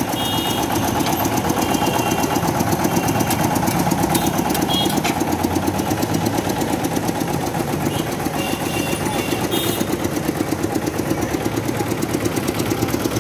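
A small engine idling steadily with a rapid, even pulse.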